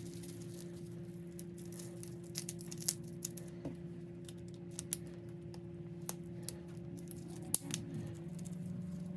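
Plastic cling wrap crinkling and small parts being handled, with scattered sharp clicks and taps, over a steady low hum.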